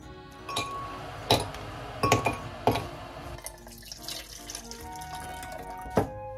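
Water poured from an electric kettle into a plastic measuring jug, with a few sharp clinks and knocks, over background music.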